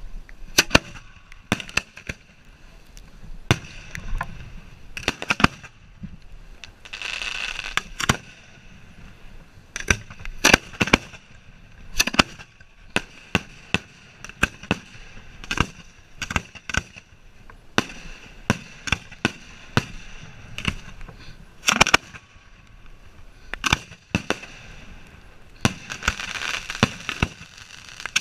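Hand-fired fireworks display heard from the firing line: a rapid, irregular series of sharp booms and pops as shells launch from the mortar racks and burst overhead.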